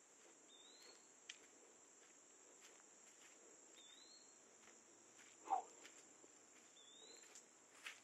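Faint woodland ambience: a steady high insect drone, and a bird giving a short rising whistle three times about three seconds apart. A few footsteps in grass and leaves, the loudest about five and a half seconds in.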